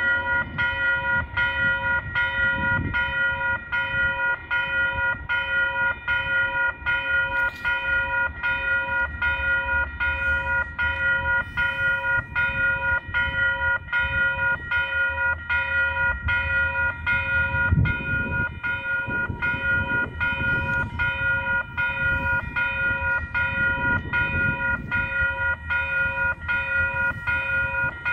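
A railway level-crossing warning bell ringing in a steady, even rhythm, warning of an approaching train. Beneath it, a low rumble swells and fades, with one brief thump about two-thirds of the way through.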